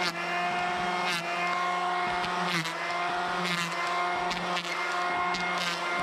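Ryobi cordless electric hand planer running at a steady whine, with short bursts of louder cutting noise as its blades shave a high spot off a chainsaw-milled board.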